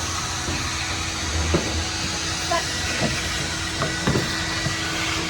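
Pressure washer spraying water across a bare metal van floor: a steady hiss with a constant low hum from the machine, and a few short knocks.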